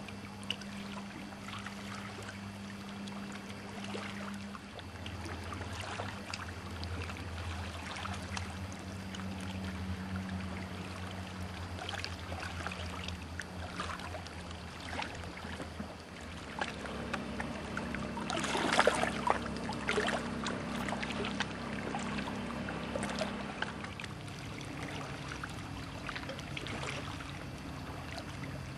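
Water sloshing and splashing around a boat over a steady low hum, with a louder burst of splashing about two-thirds of the way through.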